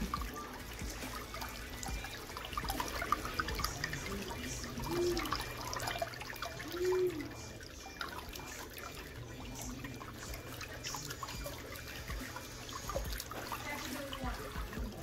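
Water running from the faucet into a pedicure foot-spa basin, a steady trickle, with scattered small clicks and two brief higher tones about five and seven seconds in.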